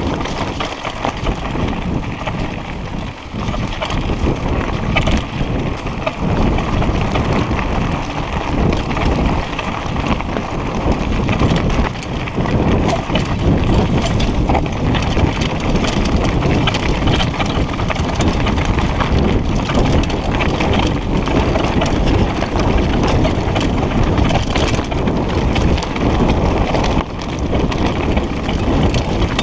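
Mountain bike riding fast over a rocky trail: a constant, irregular clatter of tyres on loose stones and the bike jolting and rattling over the bumps.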